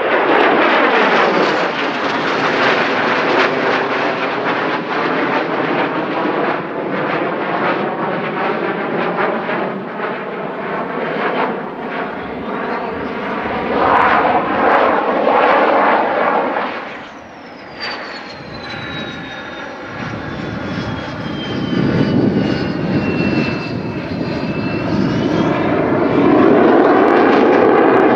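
Airplane engine noise as an aircraft flies past, loud and continuous. The sound dips about two-thirds of the way through, and a high whine slides down in pitch, then swings back up near the end.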